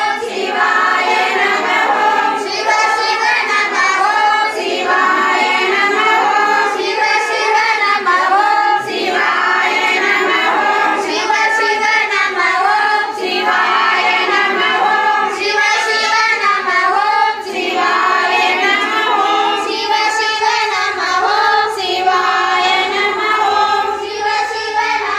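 A group of women singing a devotional song together, many voices at once without a break.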